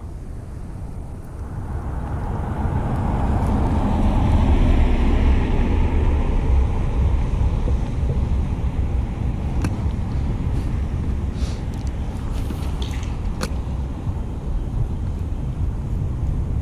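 Wind buffeting the microphone: a steady low rumble that swells for a few seconds about three seconds in, with a few faint clicks later on.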